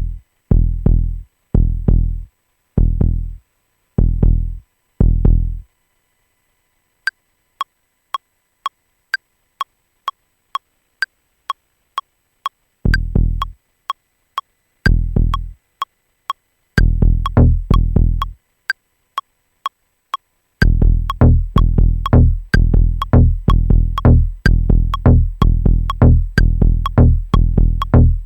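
Electronic drum-machine sounds from Maschine: deep, decaying kick drum hits about once a second, then a pause. A short, clicky percussion hit then repeats about twice a second, with kicks coming back in twice and then joining it as a dense, driving pulse about two-thirds of the way in, like a techno groove being built up pad by pad.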